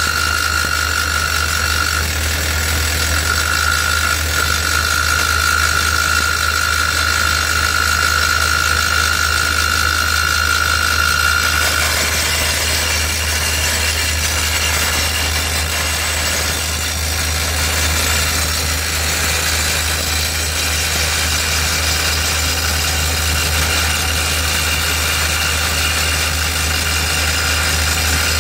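Skid steer engine running steadily while its hydraulic drill mast bores a 41 mm hole into reinforced concrete, under a broad grinding noise. A high, steady squeal runs through the first half and stops a little before halfway.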